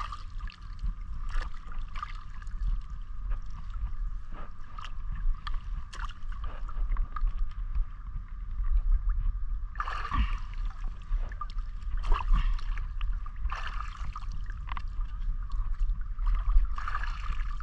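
Seawater sloshing and splashing irregularly as people move through it, over a steady low rumble.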